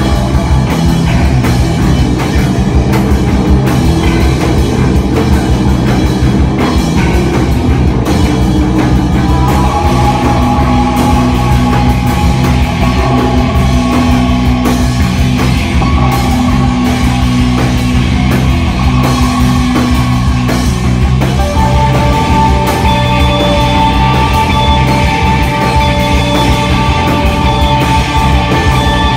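Rock band playing live and loud, with guitars over a steady, driving drum kit and no vocals. Sustained notes ring over the band, and a new set of held higher notes comes in about two-thirds of the way through.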